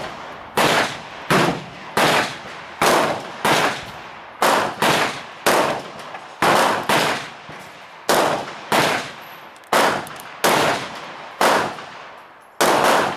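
Gunshots from neighbouring shooters' firearms: about sixteen loud shots in a steady string, roughly one a second, each dying away in a short echo.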